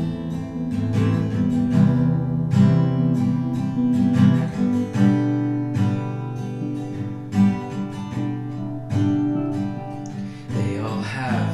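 Acoustic guitar strummed in a steady rhythm, chords ringing through an instrumental break.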